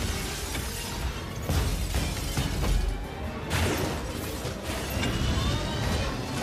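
Movie fight sound mix: a dramatic score under repeated heavy crashes and shattering, breaking debris, about one a second, as the Hulk and the Hulkbuster armour smash through a building, over a low rumble.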